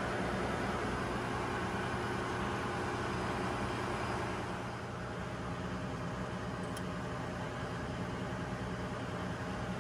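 Steady engine-room machinery drone: a constant low hum under a wash of mechanical noise from running machinery.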